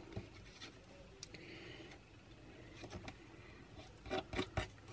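Small metal spatula scraping structure paste across a plastic stencil on paper, faint, with a click about a second in and a few sharper taps and clicks a little after four seconds.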